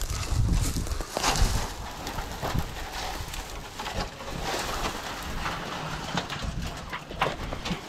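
Footsteps and rustling through dry brush, with irregular crunches and snaps and low, uneven rumbles underneath.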